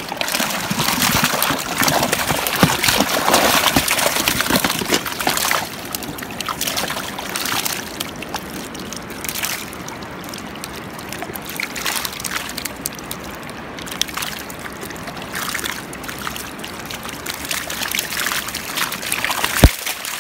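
Shallow stream water sloshing and splashing around a landing net held in the current, loudest for the first five seconds or so. Near the end the fish in the net thrash and splash, with one sharp knock.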